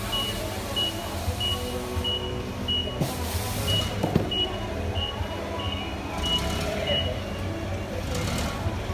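Unicarriers 1F2 LPG forklift reversing: its backup alarm beeps about twice a second over the steady running of its GK21 engine. A short hiss comes about three seconds in, and a sharp knock a second later.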